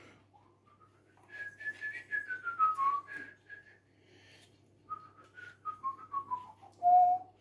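A person whistling a tune: two phrases that step downward in pitch, ending on a longer held note near the end. Faint scraping and knocking of a spoon working cookie dough in a plastic bowl runs underneath.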